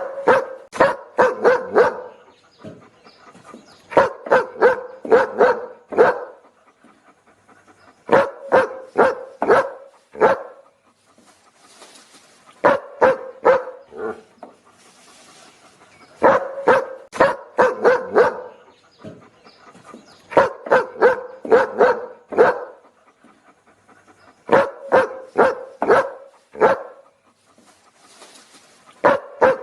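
A dog barking in quick volleys of four to six barks, a volley about every four seconds, repeating evenly as a loop.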